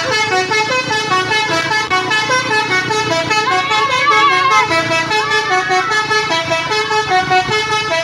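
A bus's Basuri multi-tone 'telolet' horn playing a fast tune of short stepping notes without a break, the musical horn that Indonesian children chase buses to hear.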